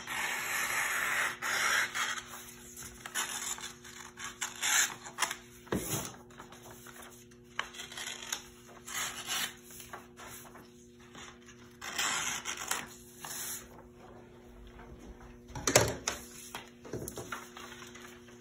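Scissors snipping through sublimation transfer paper, with paper rustling and being handled between the cuts. A sharp knock comes near the end, over a faint low steady hum.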